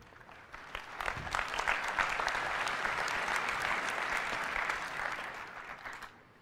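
A large audience applauding: dense clapping that builds about a second in, holds, then dies away near the end.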